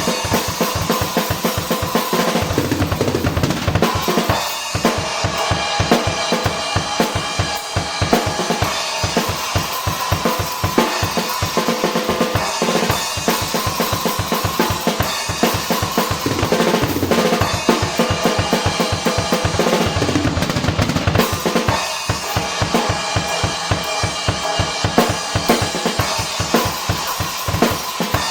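Drum kit played with Armada Achilles AXL cymbals: a continuous cymbal wash over rapid, dense kick and snare strokes, recorded raw.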